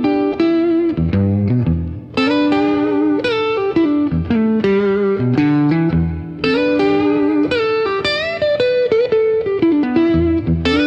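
Background music: a plucked guitar melody over a bass line.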